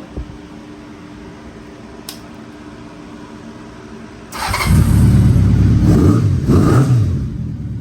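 Honda CB750 Nighthawk's air-cooled inline-four engine, its carbs freshly cleaned and balanced: a low steady hum at first, then about four seconds in it comes up loudly, revving up and down a few times before settling back toward a steady idle.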